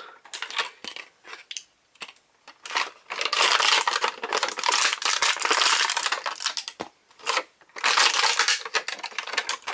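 Toy packaging being handled and unwrapped: a few light clicks and taps, then two long spells of crinkling and rustling.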